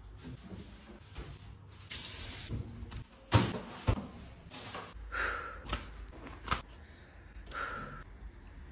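Water running from a tap into a sink, with a few sharp knocks and clatters, the loudest about three and a half seconds in.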